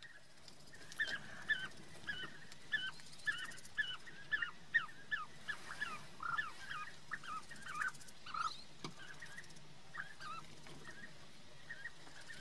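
Bee-eaters calling: a rapid series of short, rolling chirps, two or three a second, some overlapping, thinning out about nine seconds in. A single sharp click comes near the end of the busy stretch.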